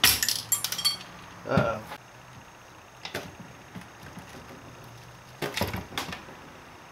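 Light metallic clicks and clinks from the valve body being worked loose from the 42RH/A500 transmission case: a quick cluster with a short high ring in the first second, then single clicks about three seconds in and a pair near six seconds. A short vocal sound comes about one and a half seconds in.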